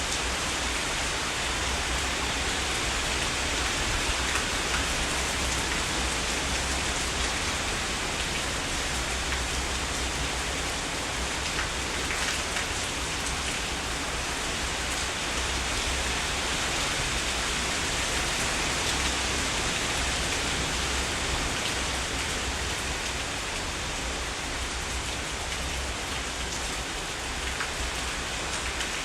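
Heavy rain falling steadily: a dense, even hiss of raindrops with faint separate drop ticks here and there.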